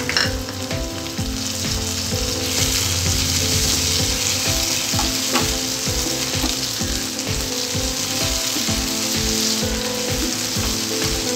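Sliced onions, green chillies and fresh tomato pieces sizzling in hot oil in a frying pan while a spatula stirs them. The sizzle gets louder about two seconds in.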